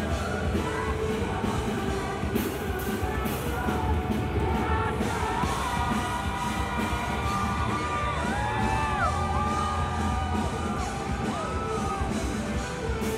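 Live band playing with a female singer holding long, gliding notes over electric guitar, with yells from the crowd.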